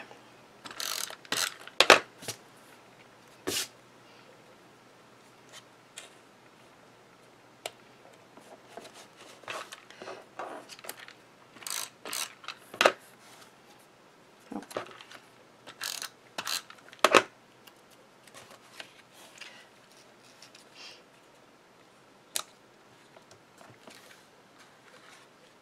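Paper-crafting handling sounds: cardstock pieces rustling and tapping on a cutting mat, with short irregular clicks and the brief ratchety run of a tape runner laying adhesive. The loudest clicks come about two seconds in and again about seventeen seconds in.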